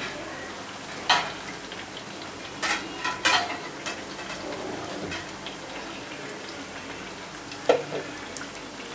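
Rice-flour rottis with drumstick leaves deep-frying in oil in a black kadai: a steady sizzle, broken by a few sharp clicks, the loudest about a second in.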